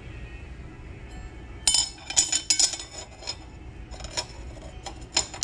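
New rear sprocket clinking against the hub and its bolts as it is offered up to check the fit. The clinks are sharp and metallic and come in quick clusters, starting about a second and a half in.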